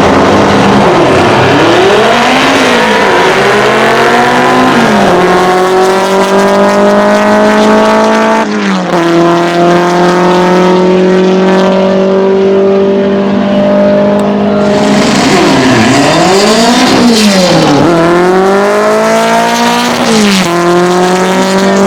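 Modified air-cooled VW Beetle drag-racing engine revving hard: several quick blips that dip and climb, then held at high revs for several seconds at a time, dropping sharply and climbing back twice.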